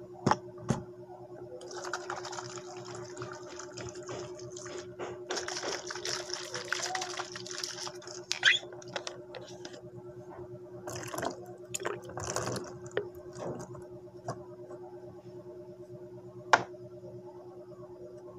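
Liquid being poured in two runs of a few seconds each, with light knocks of handling and a sharp knock near the end, over a steady low hum.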